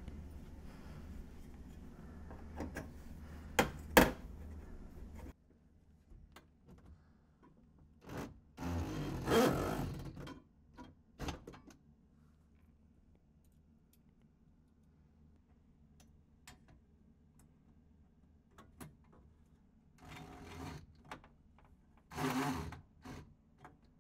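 DeWalt brushless cordless drill/driver driving screws in short runs, the longest about nine seconds in and a shorter one near the end, among scattered clicks and knocks of the metal support parts being handled. A steady low hum for the first five seconds cuts off suddenly.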